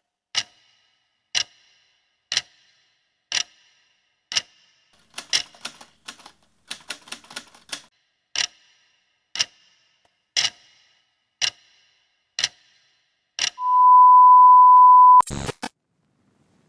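Computer keyboard typing sound effects: a sharp click about once a second, with a flurry of quicker key clicks in the middle as text is typed into a search bar. Near the end comes a steady beep lasting about a second and a half, cut off by a short noisy burst.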